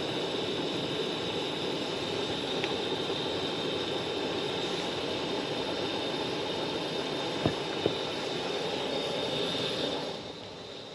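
A Coleman camp stove burner running with a steady roaring hiss, turned down about ten seconds in, when the sound drops sharply. Two small clicks near the end.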